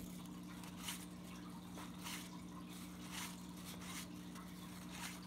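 Baseball cards being flipped through by hand: soft papery swishes roughly once a second, over a steady low hum.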